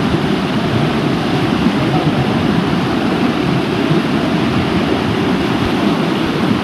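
Waterfall water rushing in a loud, steady, unbroken wash of noise.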